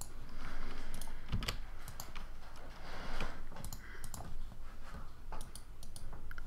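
Computer keyboard keystrokes and mouse clicks, irregular short taps while Blender settings are being entered and views switched.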